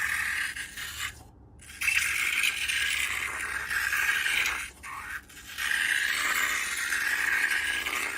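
Slime-making materials being worked: three long stretches of gritty scraping hiss, the first about a second long and the next two about two and a half seconds each, with short pauses between.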